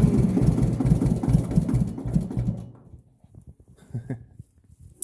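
Massey Ferguson 205-4 compact tractor's diesel engine running loudly with a rapid, even pulsing beat, just after it has caught on a cold start. It stops about two and a half seconds in, leaving a few faint knocks.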